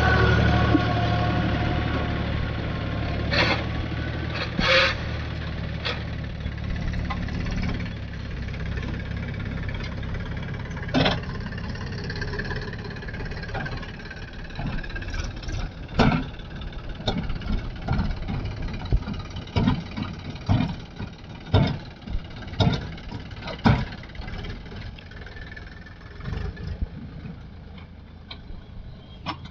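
A heavy machine's diesel engine running steadily and growing fainter over the first several seconds, followed by a run of irregular knocks and clanks.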